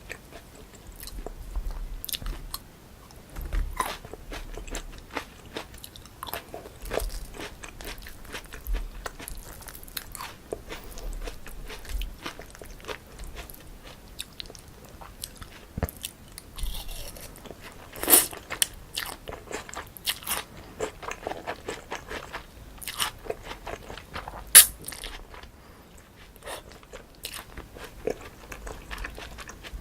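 Close-miked eating sounds: irregular crunching, biting and chewing of spicy cold chewy noodles and crunchy toppings, with two sharper, louder clicks, one near the middle and one later on.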